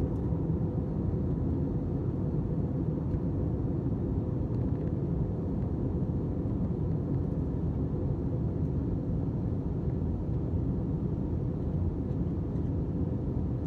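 Steady low rumble of an airliner's jet engines, even and unchanging.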